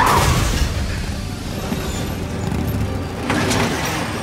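Film soundtrack: tense score with deep booming hits over a steady low mechanical rumble from a motorcycle rigged to drive a spinning trap. The heaviest hit lands right at the start, and another sharp hit comes about three seconds in.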